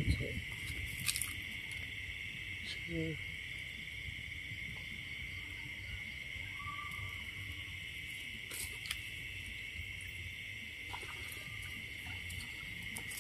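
Steady, unbroken chorus of night insects, a continuous high-pitched trill, with a few faint clicks and rustles scattered through it.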